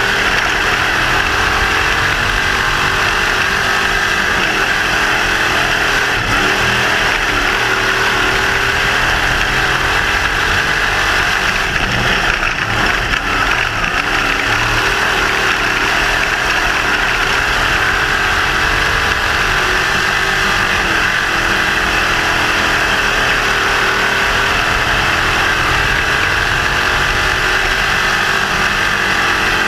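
Sprint car's 602 crate small-block V8 running hard around a dirt oval, heard from inside the cockpit: a loud, continuous engine note that rises and falls as the car goes down the straights and through the turns.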